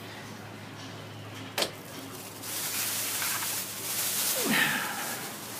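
Plastic bag rustling and crinkling as birds peck at the fruit inside it, after a single sharp tap about a second and a half in. A short falling cry sounds near the end.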